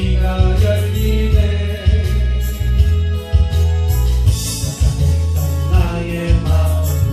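Korean gospel song played loud, with a heavy pulsing bass beat under a sung melody.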